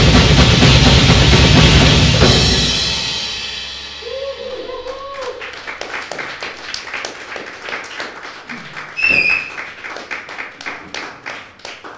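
A drum kit and hand drum play the last loud bars of the piece, which end on a crash that rings away by about four seconds in. Then an audience claps, with a voice calling out, and a short high whistle about nine seconds in.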